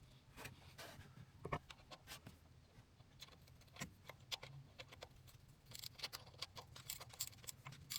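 Faint, irregular clicks, taps and light scrapes of hands working small parts, coming thicker near the end.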